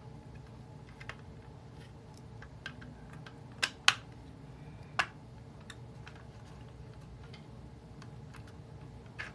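Small clicks and taps of hard plastic figure parts being handled and fitted, with three sharper clicks around the middle, over a faint steady low hum.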